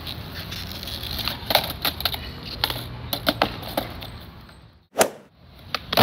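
Skateboard wheels rolling on smooth stone paving, then a run of sharp clacks and knocks as the board is popped and slams down on the ground during trick attempts, with one loud clack about five seconds in.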